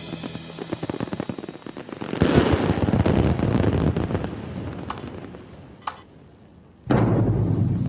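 Aerial fireworks exploding. Rapid crackling runs for the first two seconds, then a loud volley of bangs about two seconds in trails off. Two sharp single cracks come around the fifth and sixth seconds, and a heavy boom follows near the end.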